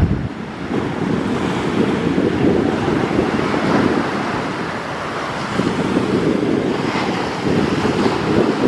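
Sea surf breaking and washing up a sandy beach, swelling and easing as each wave comes in, with wind buffeting the microphone.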